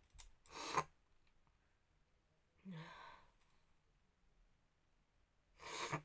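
A woman's breathing: a sharp breath just after the start, a soft sigh with a little voice in it about three seconds in, and another quick breath near the end.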